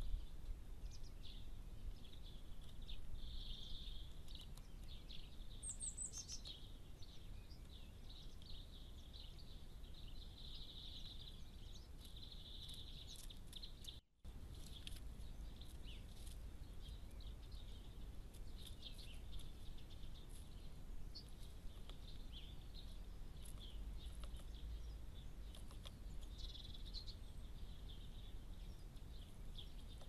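Birds singing and twittering in the background, with scattered light taps as a great spotted woodpecker pecks and chips at rotten wood, over a low steady rumble. The sound cuts out for a moment about halfway.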